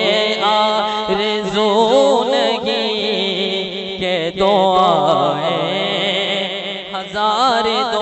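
A man chanting a naat with no words, in long, wavering melismatic phrases over a steady held note underneath.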